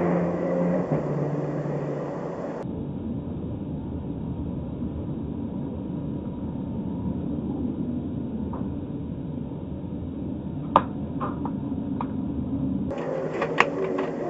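Steady road and engine noise of a car cruising on a highway, picked up by a dashcam inside the car. There is one sharp click about eleven seconds in and a few fainter ticks after it.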